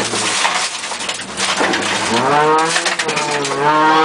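Ford Escort RS2000's four-cylinder engine, heard from inside the cabin, driven hard on a gravel rally stage. The revs sit low at first, climb about halfway through, dip briefly and climb again near the end, over a steady rush of gravel and road noise under the car.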